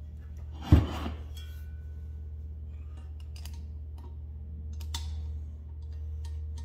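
Brass refrigeration fittings being handled and threaded onto a recovery tank's valve: one sharp metal knock about three quarters of a second in, then light metallic clicks and ticks. A steady low hum runs underneath.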